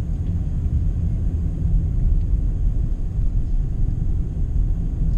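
Steady low rumble inside the cabin of a moving 2020 BMW 320i sedan: road and engine noise while cruising in Comfort mode.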